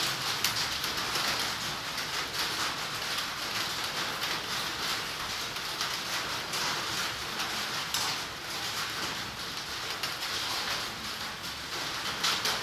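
Steady rain: an even hiss with many small drop ticks throughout.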